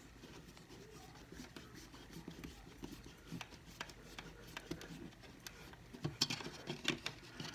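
Small flathead pocket screwdriver working a thermostat base's wire terminal screw: faint scratching and light clicks of metal and plastic, with a run of sharper clicks near the end.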